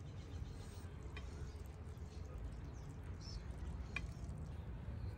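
Two faint light clicks, about a second in and near four seconds, as metal tongs set skewered kebabs down on a ceramic platter, over a steady low background rumble.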